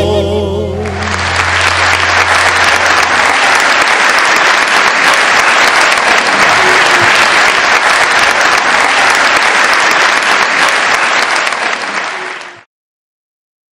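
The last notes of a folk band's guitars and violin die away as audience applause swells up about a second in. The applause keeps going steadily, then cuts off abruptly near the end.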